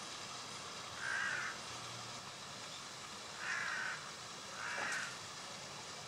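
A crow cawing three times, harsh calls each about half a second long: about a second in, then twice close together near the middle and later. Underneath is a steady hiss.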